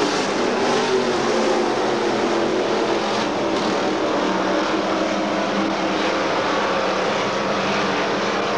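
IMCA dirt-track stock cars' V8 engines running steadily around the oval, an even drone with no sharp changes in speed, heard through an old VHS camcorder microphone.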